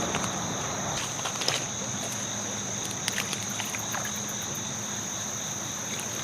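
Steady chorus of insects, a continuous high-pitched trill that holds without a break, with a few faint clicks scattered through it.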